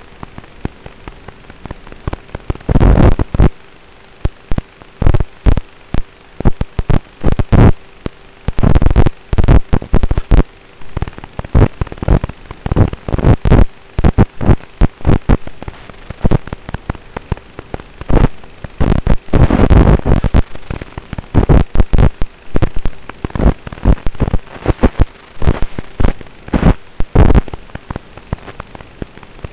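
Loud, irregular crackling and popping bursts over a steady hiss and a faint hum, starting about two and a half seconds in and coming in clusters.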